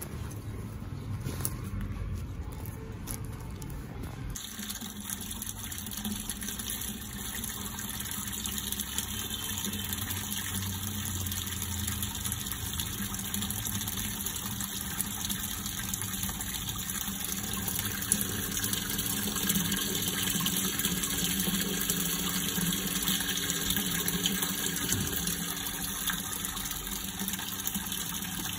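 Filtered rainwater pouring from a PVC inlet pipe into an underground storage tank, splashing steadily onto the water surface. The splashing starts about four seconds in and runs evenly after that.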